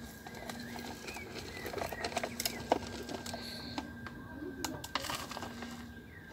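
Scattered light clicks and knocks from a small plastic toy truck being handled and pushed over dirt, with the sharpest knock about two and a half seconds in. Short bird chirps and a faint steady hum sit in the background.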